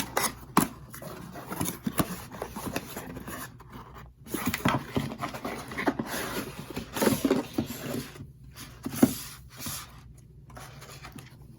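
Cardboard box and packaging being handled by hand: irregular scraping, rustling and light knocks as the contents are pulled out.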